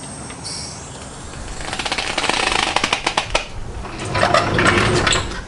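Hydraulic trolley jack being let down slowly under the front of a ute, giving a fast clicking rattle from about a second and a half in, with louder clatter near the end as the wheel takes the weight.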